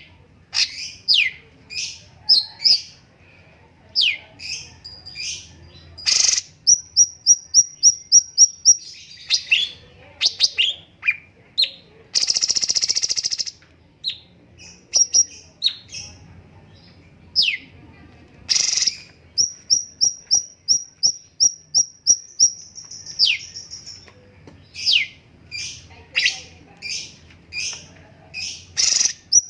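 A cucak cungkok singing: loud, sharp, falling whistled notes mixed with fast runs of repeated high chirps, about six a second, and one harsh rasping burst about twelve seconds in.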